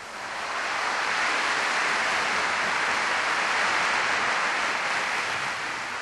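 Concert audience applauding after the final chord of an orchestral overture, swelling up within about a second and fading out near the end.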